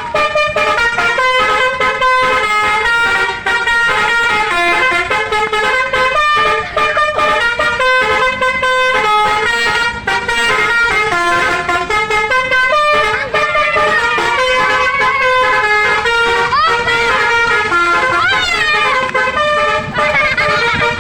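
Bus telolet horn, a multi-tone musical air horn, playing a tune of quick stepped notes over and over. A few rising swooping tones come in about two-thirds of the way through.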